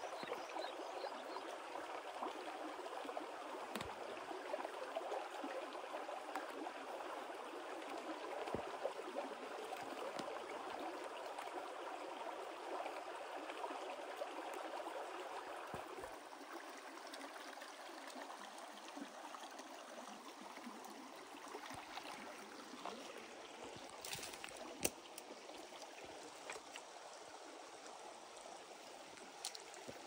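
Shallow rocky creek flowing, a steady babble of water over stones. About halfway through the flow turns quieter and thinner. A few short clicks sound over it.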